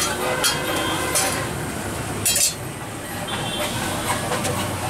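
Metal spatula clinking against a large flat griddle (tawa) as parathas are turned: a few sharp, ringing metal strikes in the first half.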